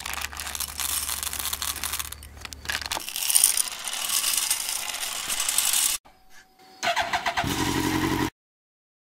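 Small hard-shelled candies rattling and clicking as they are poured, in dense clatter. Near the end a motorcycle engine runs briefly and cuts off suddenly.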